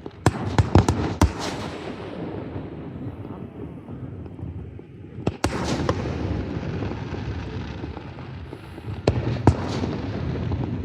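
Aerial fireworks shells bursting: a quick cluster of about five sharp bangs just after the start, a single bang about halfway, and two more near the end, over a continuous low rumble.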